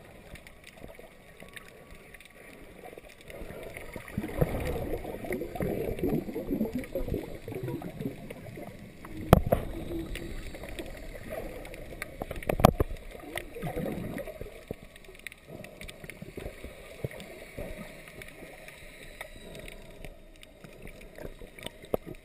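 Muffled underwater water noise heard through a submerged camera's housing: gurgling and swishing water movement, louder for a few seconds around 4 to 8 seconds in, with two sharp knocks about three seconds apart near the middle.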